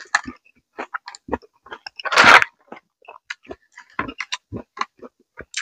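Close-miked chewing and crunching of raw vegetables, with many short wet mouth clicks and one louder crunch about two seconds in.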